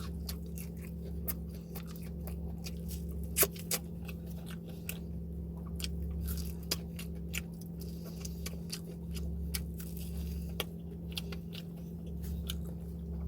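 A person chewing and biting food close to the microphone, with crunches and many short wet mouth clicks; one sharp click about three and a half seconds in is the loudest. A steady low hum runs underneath.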